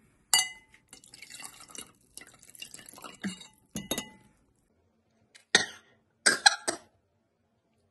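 A metal spoon stirring liquid in a glass cup, clinking against the glass several times with a short ringing tone, in the first half. Near the end come a few short sharp sounds.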